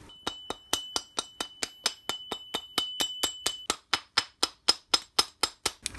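Soft-faced mallet tapping steadily on the end of a steel shaft, about four light blows a second, driving a ball bearing on to its seat. A faint high ring carries through the first half of the taps.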